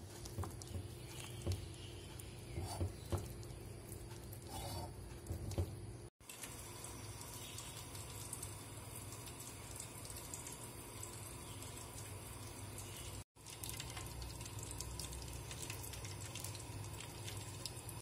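Hand squishing and kneading a thick black gram (urad dal) vada batter with onions in a bowl, wet squelches with a few sharper slaps. After about six seconds this gives way to a steady hiss and low hum from a gas burner heating a steel pan of oil.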